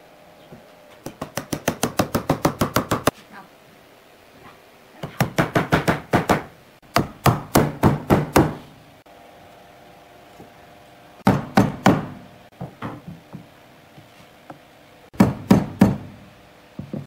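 Rapid knocking on wood, about eight blows a second, in several bursts with short pauses between, as wavy pine slats are driven down into a grooved base rail.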